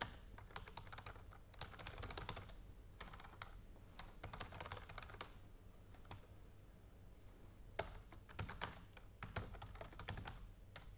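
Quiet typing on a computer keyboard, in quick runs of keystrokes, with a pause of about two seconds midway.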